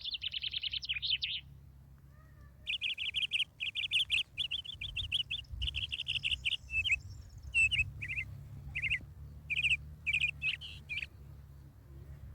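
A small songbird singing a series of rapid trilled chirping phrases, one near the start and then many more after a short pause, over a low steady rumble.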